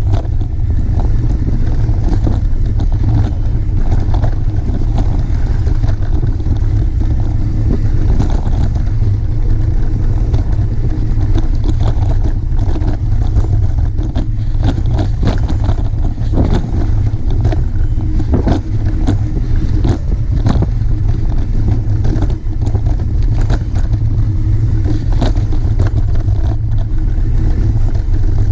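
Wind buffeting the camera's microphone as a mountain bike descends a dirt singletrack, with the tyres rolling over dirt and frequent short rattles and knocks from the bumps.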